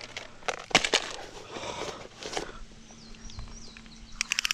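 Scattered splashes and knocks as a large brown trout is landed in a shallow stream, with a bird chirping faintly and a brief rapid clicking near the end.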